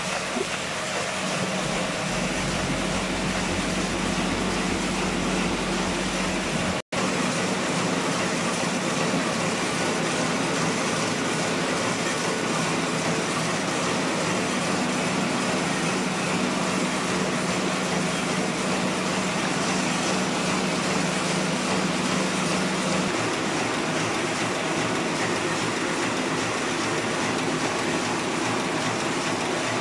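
Heidelberg MO-S offset printing press running steadily, its rollers and sheet-handling mechanism making an even, continuous mechanical clatter. The sound breaks off for an instant about seven seconds in.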